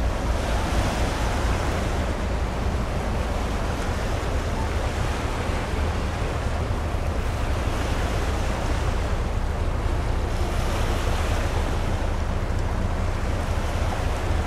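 Steady rush of sea water and wind, with wind buffeting the microphone as a deep, uneven rumble; the rush swells and eases every few seconds.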